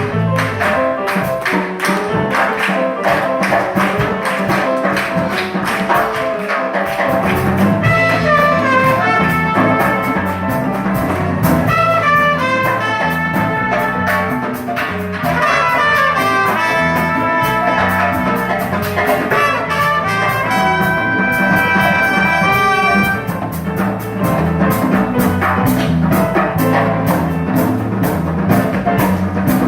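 Trumpet playing a melody with quick runs over a backing of a steady drum beat and bass; the bass comes in and the trumpet line grows stronger about seven or eight seconds in.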